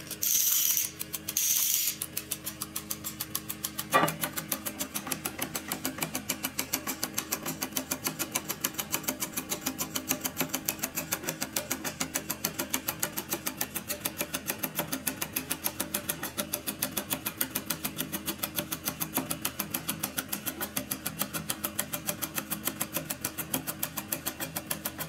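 A 3D-printed plastic mechanical clock: a few bursts of plastic ratcheting in the first two seconds as it is handled and wound, a sharp click about four seconds in, then its escapement ticking fast and evenly, several ticks a second. Steady background music runs underneath.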